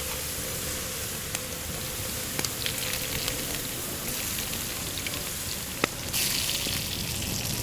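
Garlic frying in oil on a steel griddle over wood embers: a steady sizzle with a few sharp crackles, the hiss growing louder about six seconds in.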